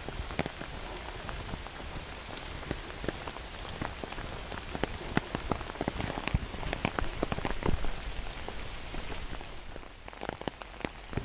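Steady rain falling, with many individual drops ticking irregularly over the hiss.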